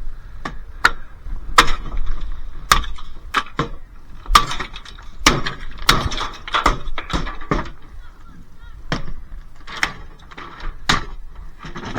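Irregular knocks and clanks of stripped dishwasher parts being handled and dropped onto a scrap pile. There are many hits a second or so apart, some ringing briefly.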